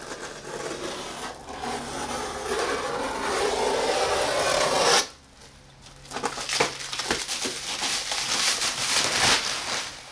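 Clear plastic stretch wrap being slit with a knife and torn away from a large cardboard-boxed safe: a long rasping tear that builds for about five seconds and stops abruptly, then a few seconds of crinkling and crackling with sharp snaps as the film is pulled off.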